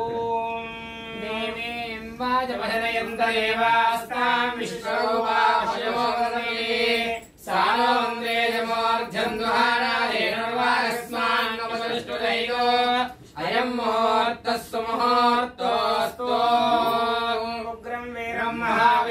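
Mantras chanted in a held, nearly level pitch, with the vowels changing but the note staying steady. There are short breaks about seven seconds in and again around thirteen to fourteen seconds.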